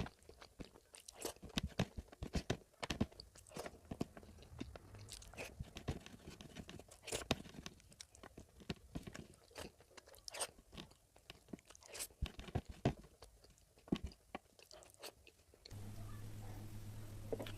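Close-miked chewing and biting of oily mutton curry: irregular sharp wet clicks and smacks from the mouth. About two seconds before the end the chewing stops abruptly and a steady low electrical hum with hiss takes over.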